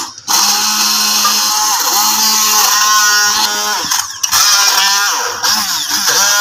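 Electric hand blender running in a tall beaker, chopping raw mango pieces, in bursts with short stops just after the start and about four seconds in. The motor's pitch dips and rises as the blade works through the pieces.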